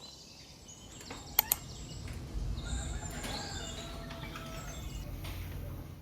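Quiet background noise with two sharp clicks close together about a second and a half in, then faint high chirps.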